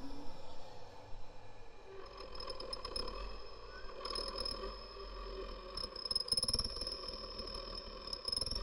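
Daxophones, bowed wooden-tongue friction instruments, sounding as an installation's soundscape: several thin high tones held steady, with a short rising chirp about four seconds in and scattered small clicks from around the middle on, over a low rumble.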